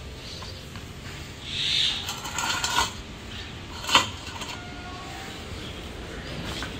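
Stainless steel dog bowl giving one sharp metallic clink about four seconds in as it is lifted off a concrete ledge. Faint rustling and a few soft high-pitched calls come before and after it.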